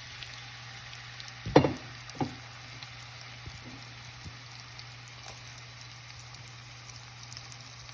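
Onions frying in hot oil in a pan, a steady sizzle. Two sharp knocks come about a second and a half and two seconds in, the first the loudest sound, and a steady low hum runs underneath.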